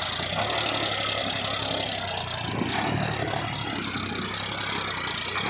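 Powertrac tractor's diesel engine running steadily under load as the tractor, trailer hitched behind, climbs a steep earth mound.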